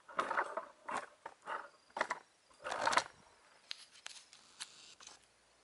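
Hands handling the dial indicator setup on the gear in the vise: about five short scraping rustles in the first three seconds, then several light, sharp clicks.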